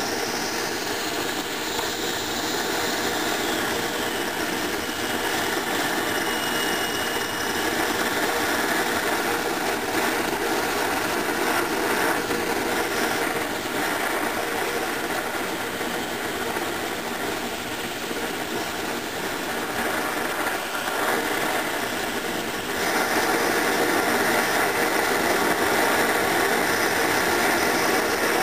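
Hago siphon-nozzle oil burner firing on a test bench, a steady rushing noise of atomising air and flame. It gets louder about 23 seconds in as the burner is turned up to a bigger flame.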